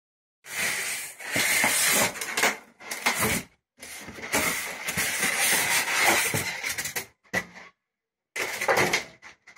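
Polystyrene foam packing lid being worked out of a cardboard box, scraping and rubbing against the cardboard in several noisy bursts with short breaks between them.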